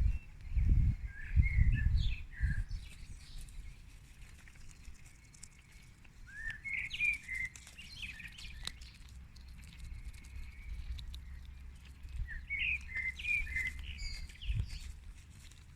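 Wild songbird singing a short phrase three times, several seconds apart. A low rumble on the microphone near the start, and briefly again near the end, is louder than the song.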